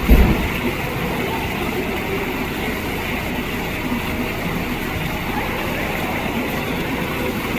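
Steady rushing background noise, with a brief low thump just after the start.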